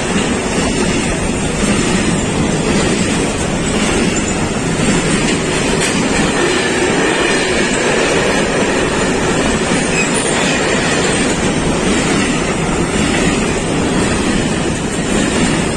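Freight train of covered wagons passing at speed, a loud, steady noise of wheels running on the rails.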